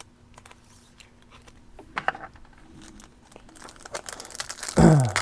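Foil trading-card pack wrapper being torn open and crinkled. A few light clicks come first, and the crinkling builds in the second half. A short voice sound near the end is the loudest moment.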